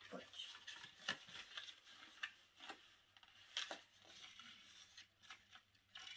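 Cardboard packaging being handled and opened by hand: faint rustling and scraping of thin card with scattered small clicks and taps, the sharpest about a second in and again past the middle.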